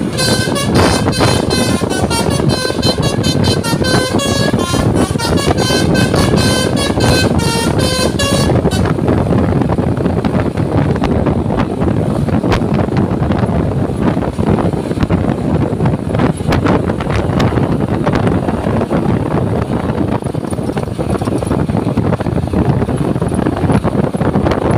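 A bus's multi-tone telolet horn playing a quick melody of stepping notes for about eight and a half seconds, then stopping. A steady rushing noise fills the rest.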